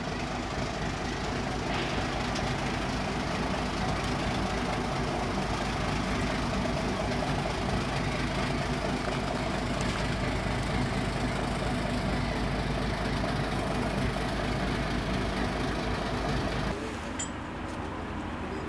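Fishing boat's engine idling steadily at the quay, a low even hum; near the end it drops slightly and the low part of the sound changes.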